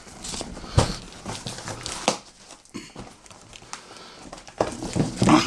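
Large cardboard box holding an 8.3 kg air cooler being wrestled open and handled: rustling and scraping cardboard with a few sharp knocks, about a second in and again about two seconds in, and a short grunt of effort near the end.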